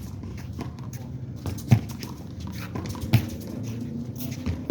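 Handball rally: a rubber handball smacked by hand and off the wall, with sharp slaps about every second and a half.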